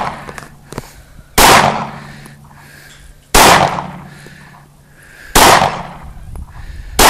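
Glock 19 9mm pistol fired four times in slow, single shots about two seconds apart, each bang dying away over about a second.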